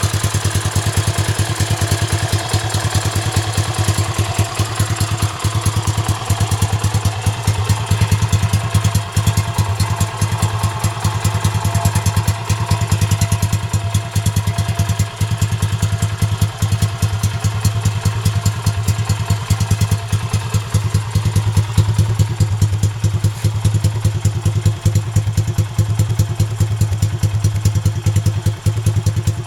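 Yamaha SRX400's single-cylinder four-stroke engine idling steadily through a Yoshimura Thumper aftermarket exhaust, with a rapid, even exhaust beat.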